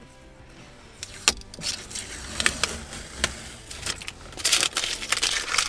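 Blue masking tape being peeled off plastic dashboard trim: a few short ripping crackles, then a denser run of crackling near the end.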